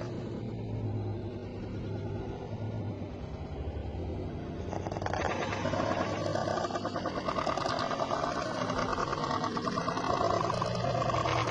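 A sleeping person snoring with a fast, rattling flutter, getting louder from about five seconds in.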